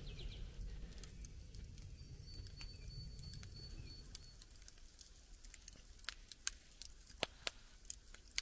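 Faint, irregular crackling and ticking of a wood fire's embers burning down in a portable camping grill used as a fire bowl, the pops growing more frequent and a little louder in the second half.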